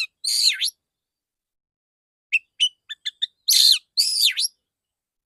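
Male oriental magpie-robin singing in separate phrases. A scratchy note comes near the start. About two seconds in there is a quick run of short, sharp chirps, followed by two loud scratchy notes that slide downward.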